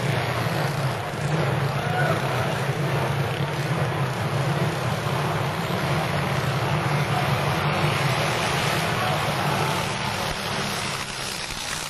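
Pre-1910 racing motorcycles running at speed, heard as a steady engine drone mixed with wind rush on the microphone.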